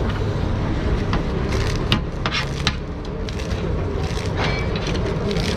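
Busy street-food stall ambience: a steady low rumble like passing traffic, with scattered knocks and clatters of utensils or dishes.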